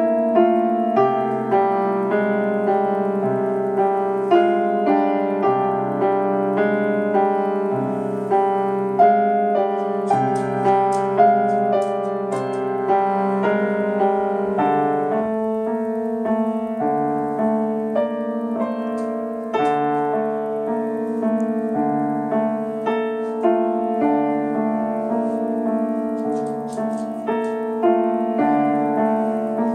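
Solo piano playing a flowing piece: a steady stream of notes over held bass notes.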